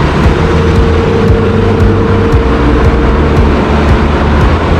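Loud, steady noise of running machinery in a large passenger ship's engine room, with a constant low hum under it and a thin steady whine that fades about halfway through.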